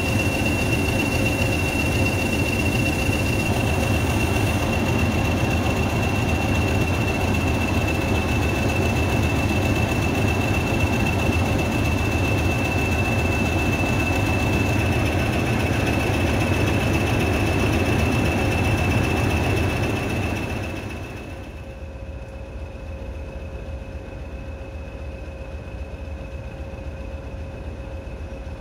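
Heritage diesel locomotive and its train running on the line, a rough engine and wheel rumble with a steady high-pitched whine over it. The noise drops away fairly quickly about three quarters of the way through, leaving a quieter rumble and the whine.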